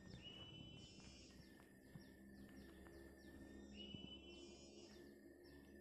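Faint birdsong: a short held whistle followed by a quick run of falling notes, heard twice, over a thin steady high tone.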